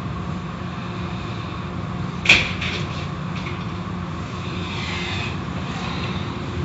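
Automatic car wash machinery running: a steady hum with a hiss of spray and cloth washer strips. A single sharp knock comes about two seconds in.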